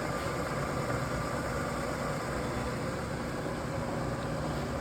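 1999 SWI Trak DPM three-axis CNC mill running a sample program, its spindle turning with a steady, pretty quiet hum.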